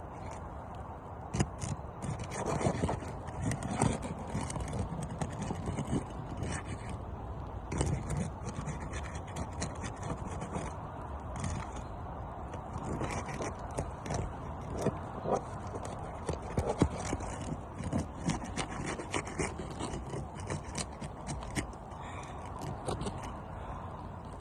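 An asphalt roof shingle being pried and scraped loose from the roof: irregular scraping, with clicks and knocks from the tool and shingle throughout.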